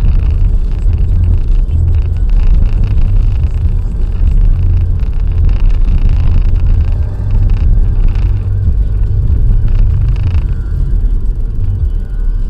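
Car driving at speed on a motorway: a steady low rumble of road and engine noise.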